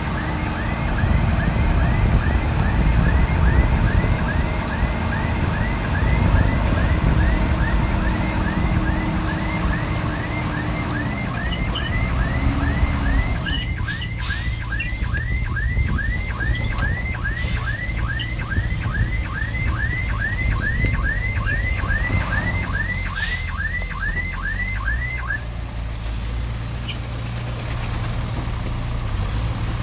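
Heavy-equipment diesel engine running under a reversing alarm that chirps about twice a second, each chirp a quick rise and fall in pitch. The alarm stops about 25 seconds in. A few sharp clanks come in the second half.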